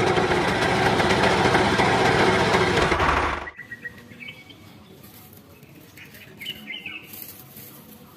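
Small electric motor of a homemade toy tractor buzzing loudly, cutting off abruptly about three and a half seconds in. Faint bird chirps follow.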